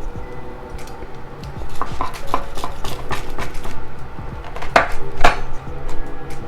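A knife cutting through a crunchwrap with a crispy toasted tostada inside, against a plate or board: a run of short clicks and scrapes, with two louder knocks about five seconds in.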